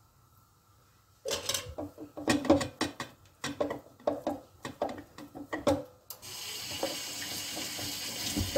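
A run of sharp knocks and clatter of kitchenware, then tap water running steadily into a stainless steel sink from about six seconds in.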